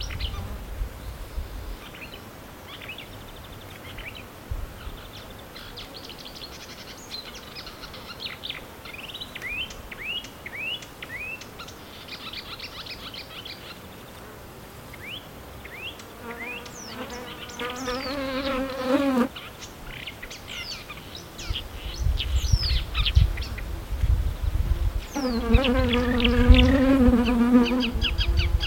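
A flying insect buzzing close by twice, a few seconds each time, as a wavering hum. Behind it a marsh warbler sings a fast, varied run of chirps and trills, with a low rumble in the second half.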